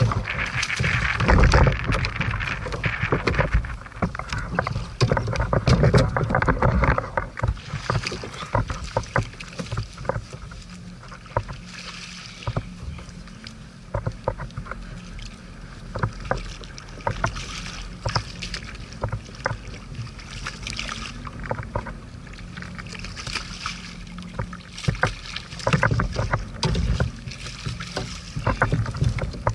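Choppy water slapping against the plastic hull of a Hobie Outback kayak, with wind rumbling on the microphone and scattered knocks and clicks from gear on the deck. It is louder in the first few seconds and again near the end.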